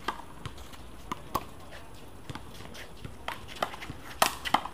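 One-wall handball rally: sharp smacks of the small rubber ball against players' hands, the wall and the concrete court, scattered at first and then coming quickly, with the loudest hits about four seconds in.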